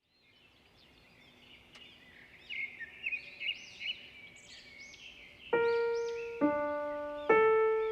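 Birds chirping with repeated short arching calls, fading in from silence. About five and a half seconds in, slow piano notes begin over the birdsong, one roughly every second, each struck sharply and dying away.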